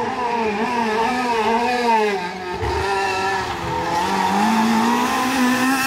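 Rally car engine under hard driving through a hairpin, revs rising and falling, dropping about halfway through, then climbing steadily toward the end.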